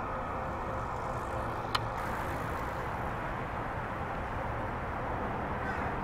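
Steady rumble of city street traffic, with one sharp click about two seconds in.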